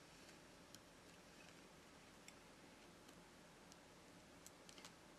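Near silence broken by a few faint clicks of metal tweezers against the opened phone's parts, with a small quick cluster of clicks near the end.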